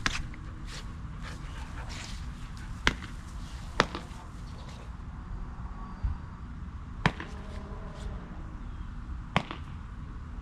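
Five sharp snaps, one near the start and the rest one to three seconds apart, with a duller low thump about six seconds in, over steady low background noise.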